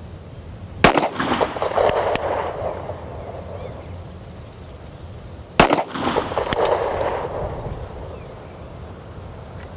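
Two pistol shots about five seconds apart, each followed by a second or so of echo: slow, aimed fire at a 25-yard target.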